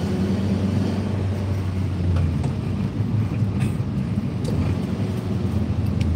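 A car driving along a city street, heard from inside the cabin: a steady low hum of engine and road noise.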